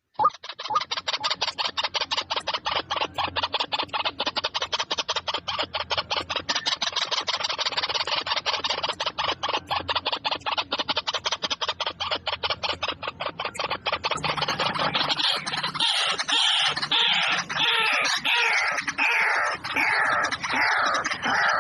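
A flock of birds calling all at once: a dense, rapid clatter of short repeated calls, with falling notes joining in about two-thirds of the way through.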